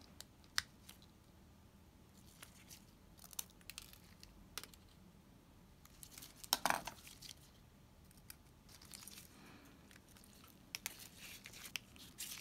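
Small metal parts and tools of a Shimano Calcutta 100XT baitcasting reel being handled during disassembly: scattered light clicks and taps of tweezers, screwdriver and reel parts. A short cluster of clicks about halfway through is the loudest.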